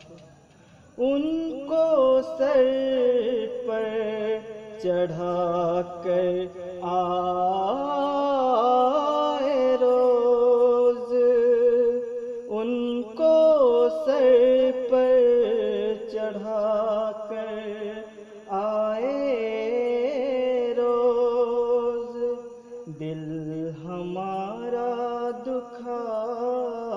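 A man singing an Urdu nazm unaccompanied, a single voice in long, wavering held notes and melodic phrases, starting about a second in.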